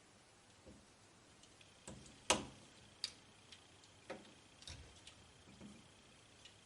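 Scattered small clicks and taps from hand work on a camera's circuit board as a battery connector is eased off, the loudest about two seconds in.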